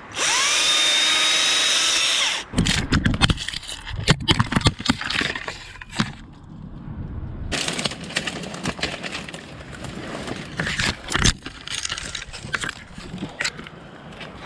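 Stihl battery chainsaw whirring up to speed and running steadily for about two seconds, then cutting off. After it comes a run of irregular knocks, cracks and rustling as the camera falls and tumbles through the conifer's branches.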